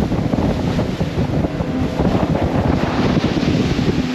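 Heavy wind buffeting the microphone on a center-console boat running near full speed, with the rush of water past the hull; the engines' steady tone is mostly drowned out by the gusting.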